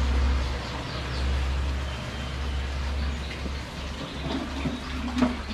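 Steady hiss of running water in koi ponds, over a low rumble. A couple of light knocks come near the end.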